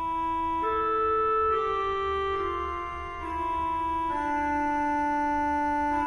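Slow organ music of sustained chords that change about every second, over a steady low bass note.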